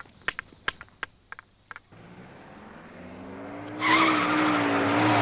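A few sharp clicks, then a car's engine draws near, growing louder with its pitch slowly rising, and from about four seconds in its tyres squeal loudly as it skids.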